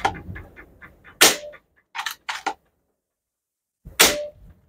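Two shots from a Hatsan Flash 101 PCP air rifle, a little under three seconds apart, each a sharp crack with a short ring after it, as pellets strike a breeze block at 10 metres. A few quieter clicks come between the shots.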